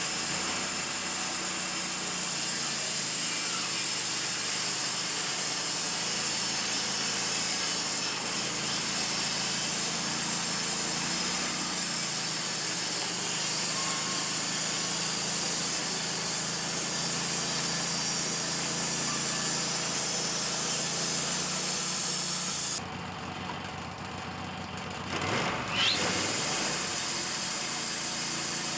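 Wood-Mizer LT-15 band sawmill running, its band blade cutting through a small spruce log with a steady hiss over the motor. About three-quarters of the way through, the cutting hiss drops away for a couple of seconds, then comes back with a quick rising whine as the motor picks up again.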